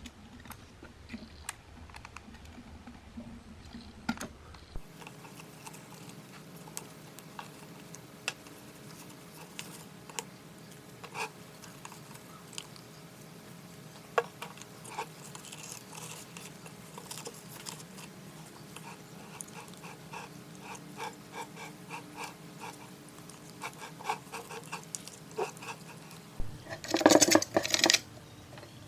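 Scattered light clicks and taps of hand work on hard objects, with a short, loud, rapid rattling burst near the end.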